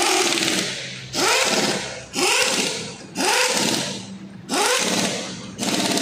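Compressed-air tool on a shop air hose, fired in short bursts about once a second: each burst starts with a sharp hiss of air and a whine that rises and falls, then fades.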